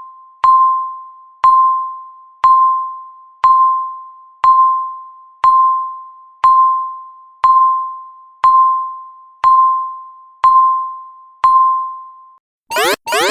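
Countdown timer tick sound: a short ringing ding of one pitch once a second, each dying away, twelve times. Near the end the timer's alarm starts at zero, a loud, harsh sweep rising in pitch and repeating several times a second.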